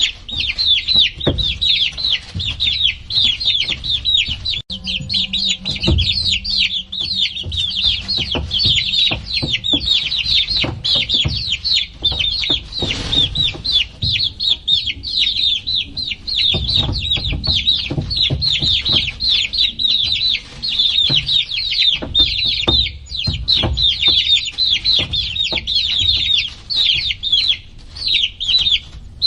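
A brood of baby chicks peeping nonstop, many short, high, falling cheeps overlapping into a dense chorus. Irregular low thumps and knocks sound beneath.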